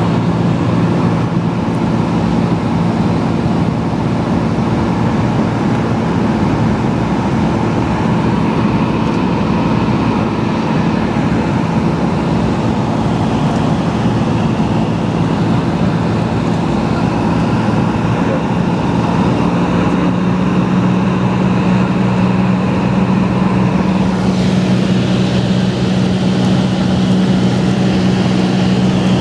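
Cessna T-210 Centurion's turbocharged six-cylinder engine and propeller in cruise flight, a steady loud drone whose tone shifts slightly about two-thirds of the way through.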